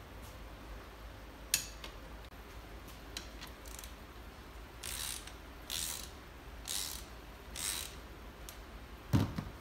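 Ratchet wrench clicking in four short strokes, about one a second, turning the wheelchair's rear axle bolt against the nut. There is a single sharp click first and a heavy thump near the end.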